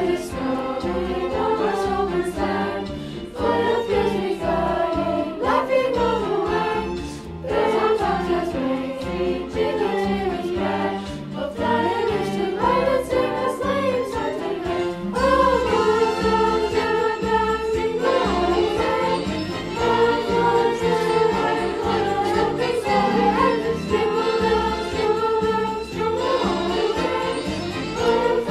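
Middle school chorus singing a winter song with instrumental accompaniment.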